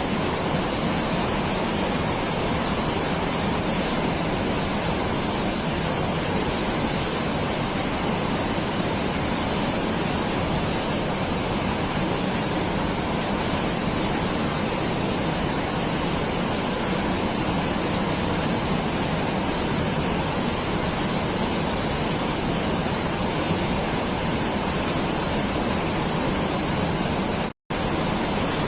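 Steady, even rush of falling water, unchanging throughout, broken by a split-second silent gap near the end.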